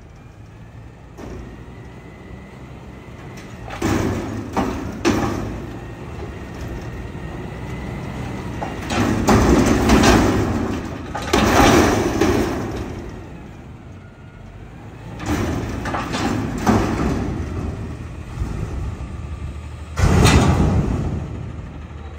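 Autocar ACX front-loader garbage truck's CNG engine running while the Heil Half/Pack's hydraulic arms hold a steel dumpster upside down over the cab to empty it. The dumpster bangs and clanks in several bursts, with a heavy clunk near the end as the arms come down.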